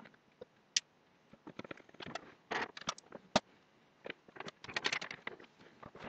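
Faint scattered clicks, taps and light scrapes of a soldering iron and wires being handled at a soldering bench, with one sharper click about three and a half seconds in.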